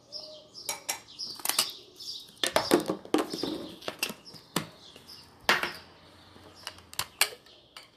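Clicks, knocks and rustles of kitchen items being handled and set down on a table, with birds chirping in the background.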